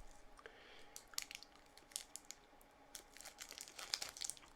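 Faint, scattered crackles of an Airheads sweet wrapper crinkling as it is handled and peeled open.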